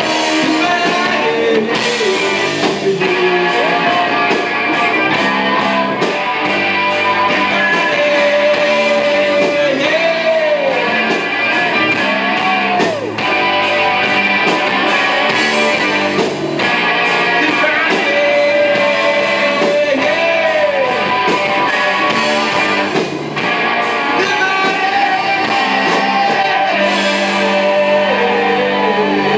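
Live rock band playing: electric guitar and drums with a singer.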